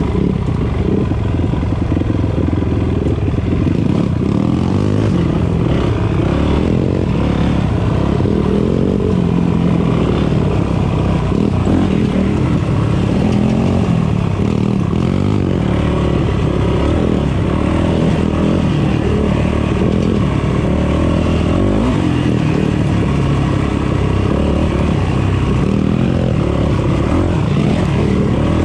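Dirt bike engine running continuously while riding a dirt trail, its pitch rising and falling as the throttle is worked.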